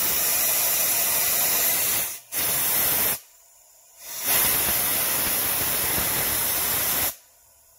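Compressed air from a blow gun hissing through a turbocharger and its exhaust manifold, spinning the compressor wheel, to show air escaping at the manifold joint. Three long blasts, each cut off sharply, the first with a brief dip about two seconds in.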